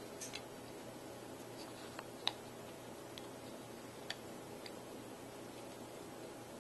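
A cat nudging a small shiny lid on the carpet, giving a scattered handful of light clicks and ticks, the sharpest a little over two seconds in, over a steady low room hum.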